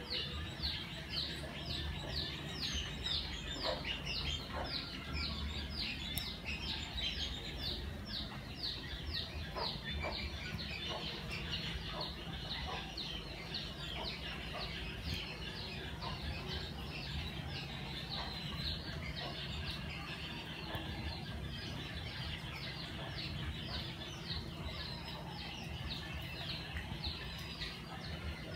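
Birds calling: a fast, continuous series of short high chirps, each dropping in pitch, about three a second, over a low steady hum.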